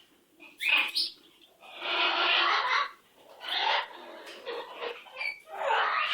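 Pet parrot giving harsh, noisy squawks: a short rising squawk about half a second in, a longer screech of about a second around the two-second mark, then shorter calls, with another burst near the end.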